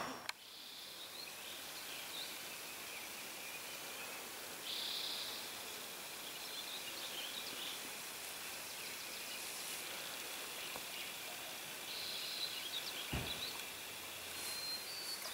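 Outdoor ambience: a steady hiss with scattered bird calls, a short burst of chirping about five seconds in and more chirps near the end. A single low thump comes just before the end.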